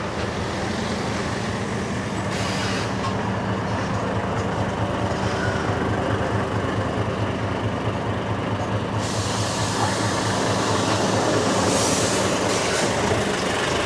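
Heavy truck's diesel engine running steadily and growing slowly louder, with a brief hiss near the end.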